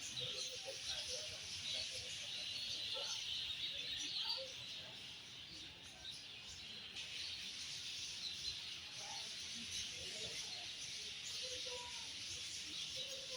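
Steady high chatter of many small birds chirping together, with faint scattered lower calls or sounds mixed in.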